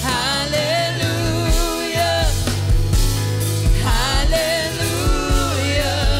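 A worship song: a lead voice singing a sustained melody with vibrato over a band with steady bass and low drum beats.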